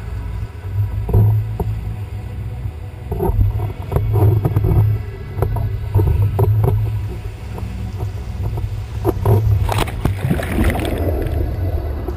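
Wind buffeting the microphone of an action camera on a windsurf rig, with water rushing past and the board slapping across choppy white water in irregular knocks. A louder burst of spray comes near the end.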